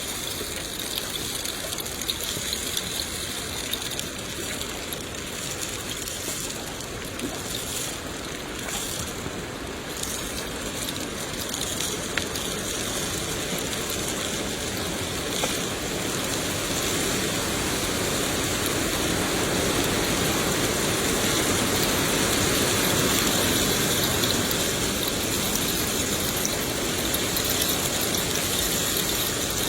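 Steady rain, an even hiss of falling water that grows a little heavier past the middle.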